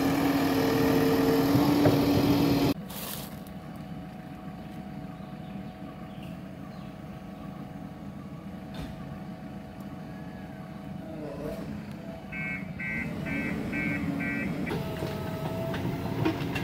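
JCB 3DX backhoe loader's diesel engine running loud and steady, then cutting suddenly to a quieter hum about three seconds in. About twelve seconds in, its reversing alarm gives five short high beeps, and near the end the engine grows louder again as the backhoe digs.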